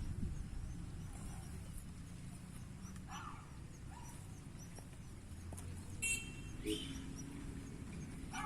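A few short animal calls, about three and six seconds in, over a steady low rumble, with faint high chirps repeating in the background.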